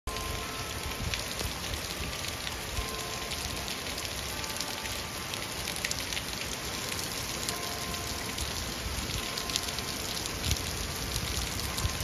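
Steady rain falling, with many close raindrops ticking sharply on surfaces over the even hiss of the downpour.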